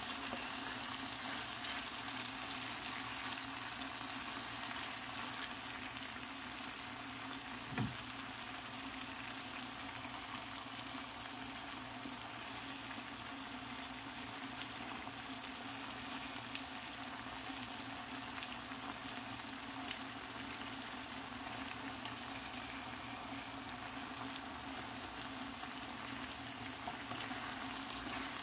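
Shrimp cooking in a thick tomato sauce in a pan, sizzling and bubbling steadily.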